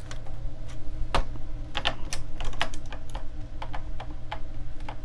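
Plastic needle pusher selecting needles one after another along an LK 150 knitting machine's metal needle bed: a run of light, sharp clicks at irregular spacing, a few a second.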